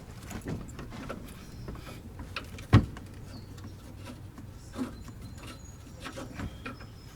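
Scattered small metallic clicks and knocks of hand tools and hardware being worked at a car's rear shock mounting bolt, with one sharp, loud knock about three seconds in.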